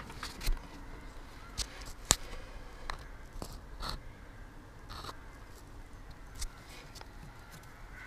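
Handling noise: a few scattered light clicks and knocks, the sharpest about two seconds in, over low background noise.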